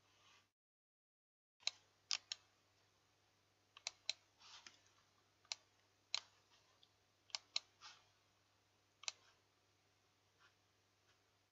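Faint, irregular clicking at a computer, about a dozen sharp clicks starting about a second and a half in, over a low steady electrical hum.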